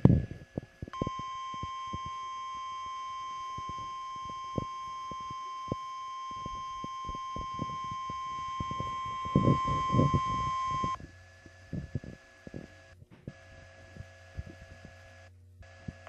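NOAA Weather Radio warning alarm tone (the 1050 Hz tone) played through a radio receiver: one steady high beep held for about ten seconds, over crackling static, cutting off sharply. After it only a faint receiver hum with scattered clicks remains.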